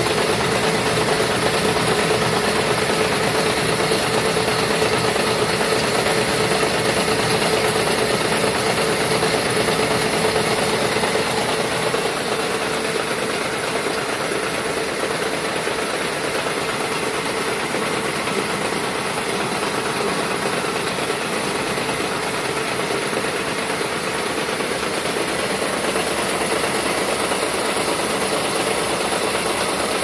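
Wire harness braiding machine running, its bobbin carriers clattering in a dense, steady mechanical rattle that eases slightly about twelve seconds in.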